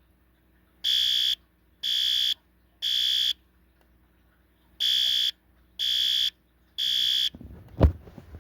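System Sensor L-Series electronic horn strobe sounding the temporal-3 fire evacuation pattern: three half-second beeps, a pause, then three more, a loud high beep tone. Near the end the horn stops, and a sharp thump and some rustling follow.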